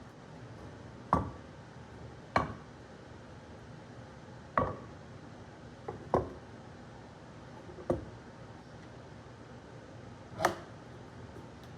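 Six sharp wooden knocks at uneven gaps of a second or two, from 2x4 boards being handled and set down, over a faint steady background.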